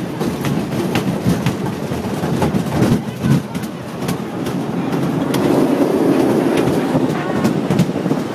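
Wooden roller coaster train clattering along its track, with a run of sharp clicks a few per second over a steady rumble that grows louder about five seconds in.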